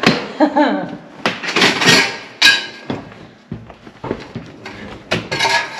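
Irregular knocks, clatters and scrapes from a wooden board and tools being handled, busiest in the first few seconds and again near the end.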